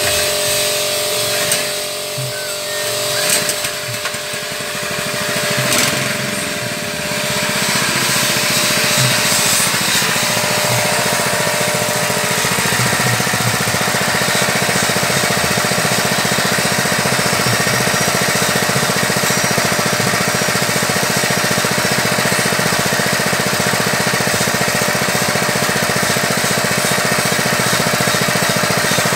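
Small petrol engine driving a mini floating fish-feed pellet extruder, running steadily while the machine turns out pellets. The sound grows louder and evens out about seven seconds in.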